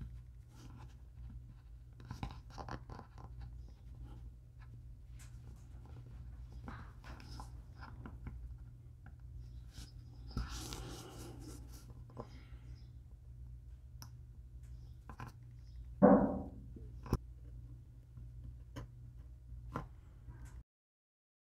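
A fine steel pick scratching and scraping into a hard maple lure body in many short, light strokes. About 16 s in there is one brief, louder rub or bump that drops in pitch.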